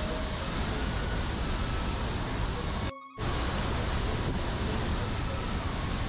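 Steady rushing of a waterfall; the sound cuts out for a moment about halfway through.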